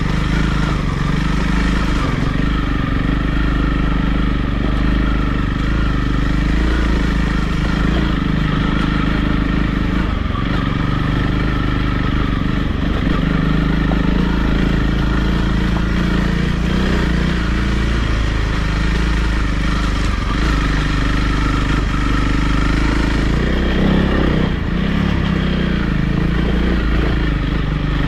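Honda CRF300 Rally's single-cylinder engine running steadily under way, its pitch rising and dipping slightly with the throttle.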